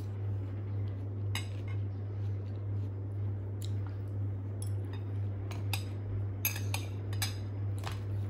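Metal chopsticks and a metal spoon clinking and tapping against ceramic bowls while eating, a scatter of light clicks with the loudest near the end, over a steady low hum.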